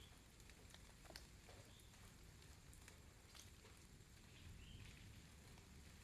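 Near silence: a faint steady hiss with a few soft ticks, and two faint short high chirps, one about two seconds in and one near five seconds.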